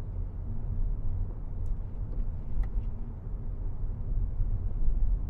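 Steady low road rumble inside the cabin of a moving 2019 Audi A4L, with a couple of faint ticks about two to three seconds in.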